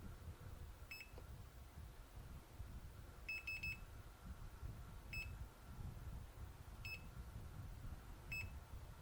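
Short high electronic beeps from the Extech MM570A (Brymen BM859) multimeter's beeper: one about a second in, a quick run of four, then single beeps roughly every one and a half seconds, as the reassembled meter is powered up and tried out.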